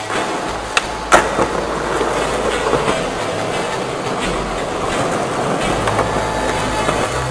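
Skateboard wheels rolling on a smooth concrete parking-garage floor, a steady rumble, with two sharp clacks about a second in.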